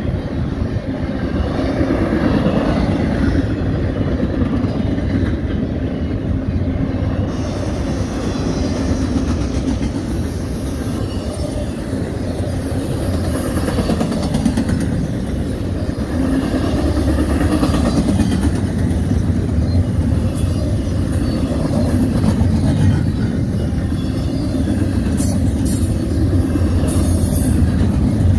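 Double-stack intermodal freight cars of a CSX train rolling past, a steady loud rumble and rattle of steel wheels on the rails.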